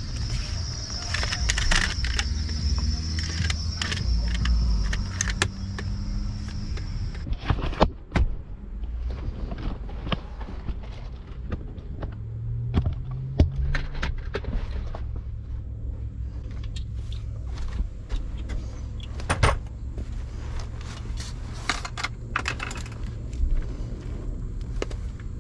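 Metal hand tools clinking and clicking against fittings in a steering wheel, with scattered sharp knocks, over a steady low hum. A high steady whine runs through the first seven seconds or so and then stops suddenly.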